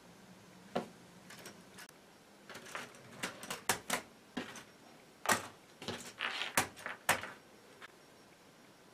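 LEGO Technic plastic parts of a tank robot's track frames clicking and knocking as they are handled and set on the table: an irregular series of sharp clicks and taps, busiest in the middle.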